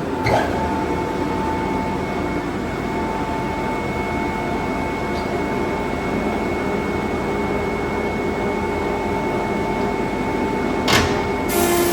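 Woodfast PT410a planer thicknesser running steadily, with a short knock just after the start and a sharper knock near the end, after which the machine's tone changes.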